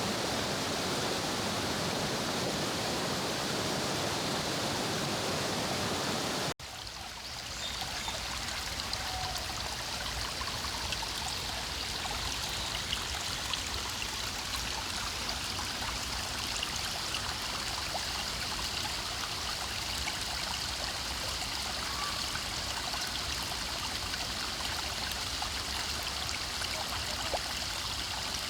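Forest mountain stream flowing steadily. About six and a half seconds in, an abrupt cut changes it from a dense, even rush of a small cascade to a brighter, babbling trickle over rocks with small splashes.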